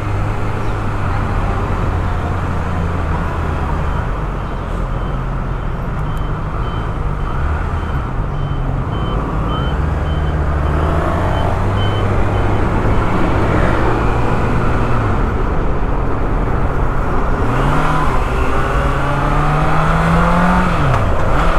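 Motorcycle engine running while riding through city traffic, with road and wind noise. The engine pitch rises and falls with the throttle, climbing in several sweeps over the last few seconds. A faint high-pitched beep pulses evenly through the first half.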